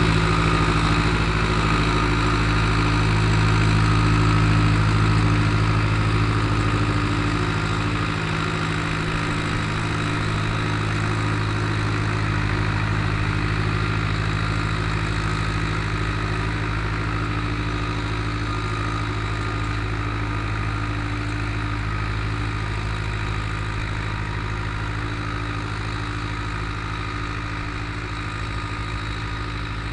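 Long 900 (Zetor 8011) farm tractor's diesel engine running steadily, on its newly fitted injector pump, gradually growing fainter.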